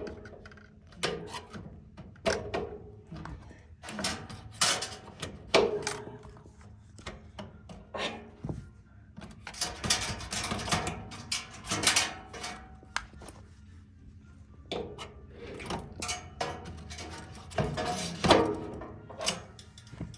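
Irregular knocks, clunks and scrapes of the electric stove heater's casing and parts being handled and fitted back together during reassembly.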